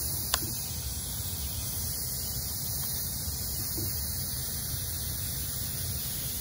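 Steady hiss of compressed air bleeding out of an FX Wildcat MK3 PCP air rifle's reservoir through its loosened pressure gauge as the gun is degassed. A single light click sounds about a third of a second in.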